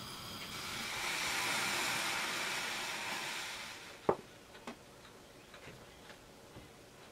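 Hissing from a saucepan of milk heating on a gas stove, swelling and then dying away after about three seconds. A sharp knock follows, then a few faint ticks.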